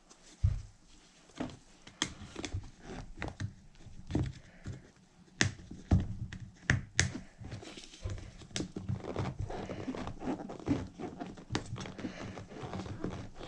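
Hands working a soft rubber paddle tire and its foam insert onto a 1/5-scale RC wheel: irregular rubbing and crinkling broken by scattered sharp knocks.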